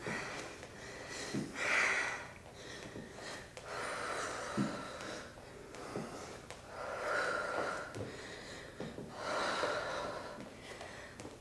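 Heavy breathing of a person winded by a high-intensity interval: a breath swells and fades about every two and a half seconds.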